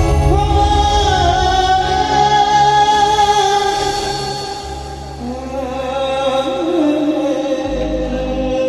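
Song from an Odia jatra stage show: a voice holds one long note for several seconds, then drops to a lower held note about five seconds in, over steady instrumental backing.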